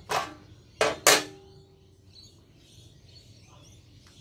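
Three sharp metallic clanks within about the first second, each ringing briefly, as pliers and a circuit board knock against the inverter's sheet-metal chassis while the board is worked free.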